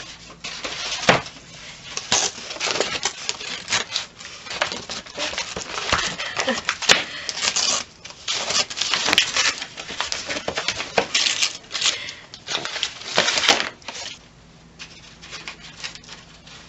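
Brown wrapping paper crackling and tearing in irregular bursts as a Shetland Sheepdog rips it off a present, dying down near the end.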